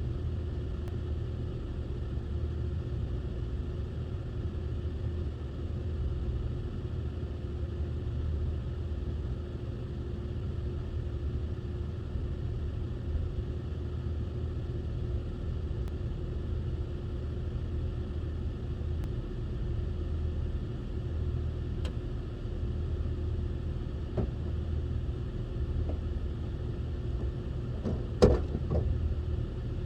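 Vehicle engine running steadily with a low rumble, and a single sharp knock near the end.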